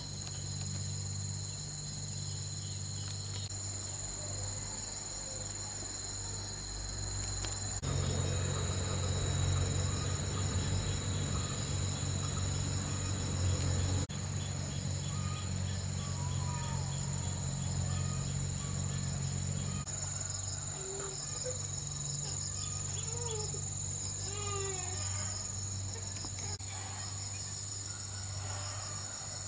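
A steady, high-pitched chorus of crickets and other insects trilling, over a low steady hum. A few short chirps come in over the chorus past the middle.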